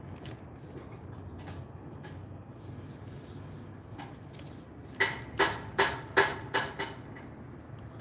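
A quick run of six sharp metallic clicks with a slight ring, starting about five seconds in, from hand tools being worked while a jumper wire is made up.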